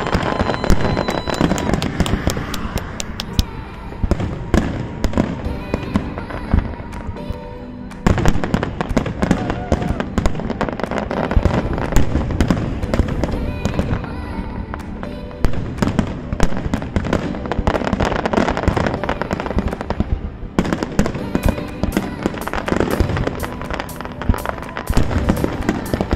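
Aerial fireworks display: a dense, continuous run of shell bursts, bangs and crackling, with music playing underneath.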